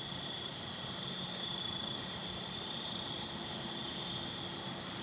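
Steady outdoor background hiss with a faint, steady high-pitched whine.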